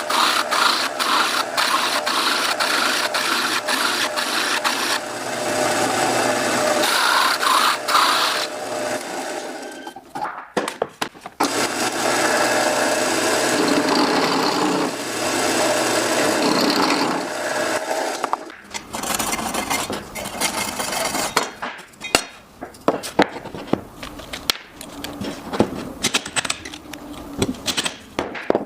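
Woodworking: a power tool working wood in two long stretches with a short break between, followed by a run of sharp clicks and knocks as wooden parts and tools are handled.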